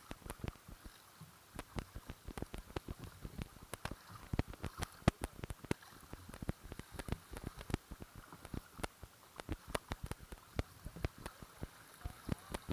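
Kayak paddling: water dripping and splashing off the paddle blades onto the kayak and the water, a fast irregular patter of sharp ticks.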